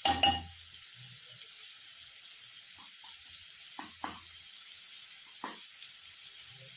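Chopped onions and green chillies sizzling steadily in hot oil in a stainless steel pan, with turmeric powder just added. A steel spoon knocks sharply against the pan at the very start, and a few faint ticks follow later.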